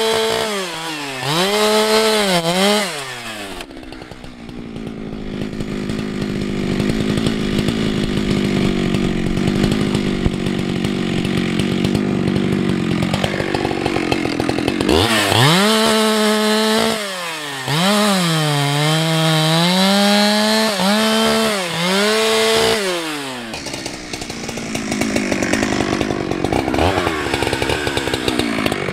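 Ported Husqvarna 365 X-Torq two-stroke chainsaw running at full throttle while bucking a log. The engine pitch dips each time the chain bites under load and climbs again as it frees, with stretches of lower, rougher running while buried in the cut.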